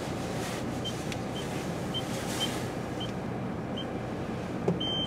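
Steady low rumble of a car idling, heard from inside the cabin. Over it come six short, high-pitched beeps about half a second apart, and one longer beep near the end.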